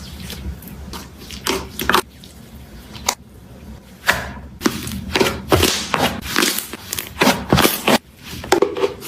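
Slime being squeezed and played with by hand: irregular wet clicks, pops and squelches, with gaps between them.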